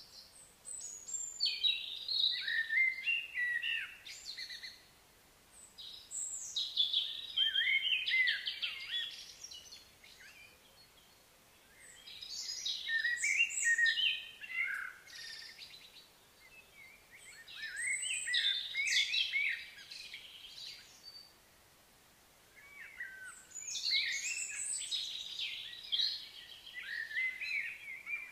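A songbird sings long, varied phrases of quick, high notes. The phrase comes five times, each lasting three to four seconds, with short pauses between.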